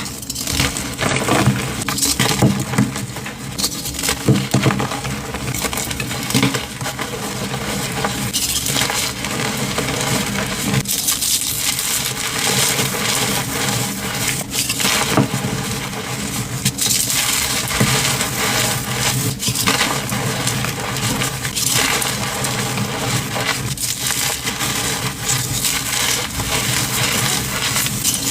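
Blocks of dyed, reformed gym chalk being crushed, a dense run of crunching and crackling with many small sharp snaps.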